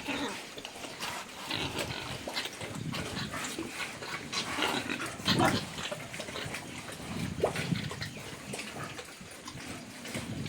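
Pigs grunting: many short, irregular calls, the loudest about halfway through.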